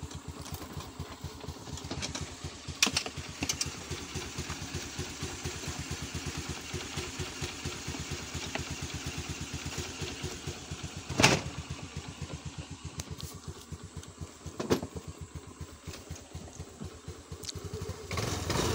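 Honda Activa 125 scooter's single-cylinder four-stroke engine idling evenly, running on a newly fitted spark plug that cured its failure to start. A few sharp knocks come over it, the loudest about eleven seconds in.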